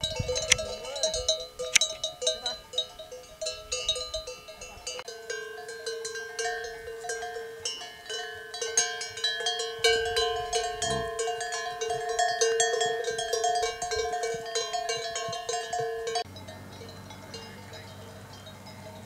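Bells worn by grazing yaks, jingling and clanking in many quick strikes over ringing tones. The bell sound changes abruptly about five seconds in and cuts off about sixteen seconds in, leaving a quiet low hum.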